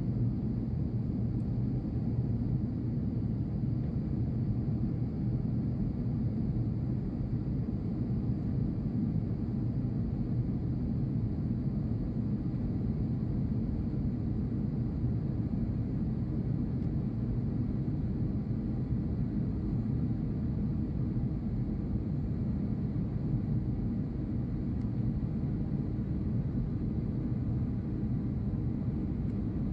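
Steady low rumble of an airliner's cabin on approach to landing: jet engine and airflow noise heard from inside the cabin, even and unbroken.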